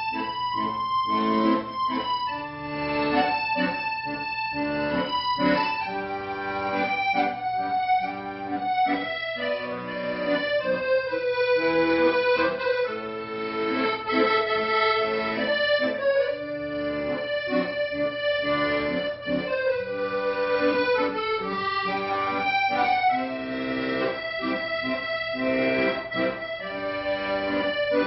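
Accordion playing a slow, sentimental melody with sustained chords and a rhythmic bass-and-chord accompaniment beneath.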